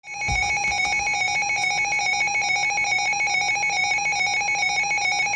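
Emergency Alert System alert tone: a buzzy electronic tone rapidly trilling between two close pitches at a steady level. It signals the start of a broadcast weather warning.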